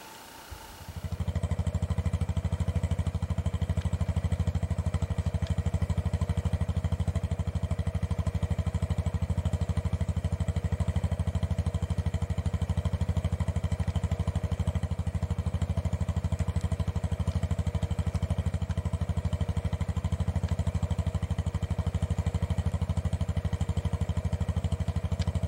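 An engine idling steadily: a low, fast, even pulse with a steady hum above it. It starts about a second in and cuts off abruptly at the end.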